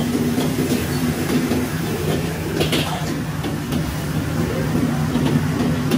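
Commercial gas wok burner and kitchen blower running steadily with a low hum, while a metal ladle scrapes and clinks against the wok during stir-frying, most audibly a little before the middle.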